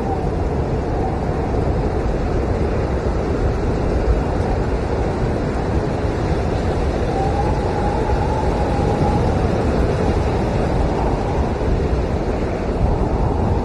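Howling blizzard wind, a steady deep rush with a faint whistle that rises and fades about halfway through.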